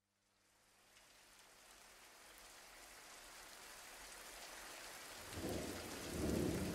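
Rain fading in from silence about a second in and growing steadily louder, with low rolls of thunder in the last second and a half: a rainstorm recording that opens the backing track.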